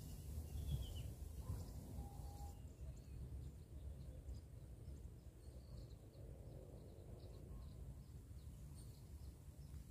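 Quiet outdoor ambience: a low steady rumble, with faint short bird chirps for a few seconds in the middle.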